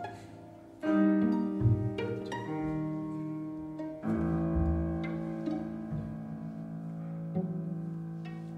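String quintet and piano playing a scherzo. A sudden sustained chord enters about a second in and another about four seconds in, each left to ring and fade.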